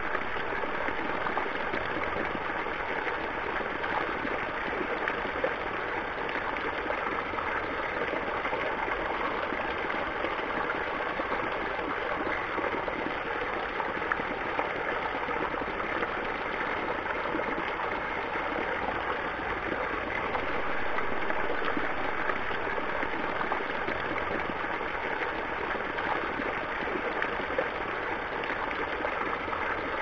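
Water pouring steadily from a row of spouts in a stone wall fountain and splashing into the trough below, an even rushing sound that swells slightly about two-thirds of the way through.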